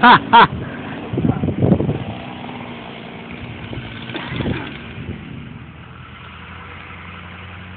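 Two short whooping shouts right at the start, cheering the felled tree, then a few rough low noises and a motor idling steadily in the background.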